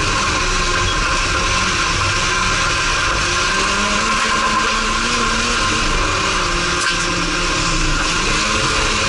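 Race car's engine heard from inside its cabin at speed, its pitch rising and falling as the driver accelerates and lifts, over a steady loud hiss.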